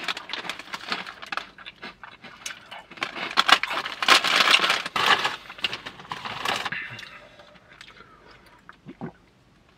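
Crinkling and rustling of a plastic snack bag of Hot Cheetos being handled and dug into, loudest around four seconds in. It fades to faint, scattered handling sounds after about seven seconds.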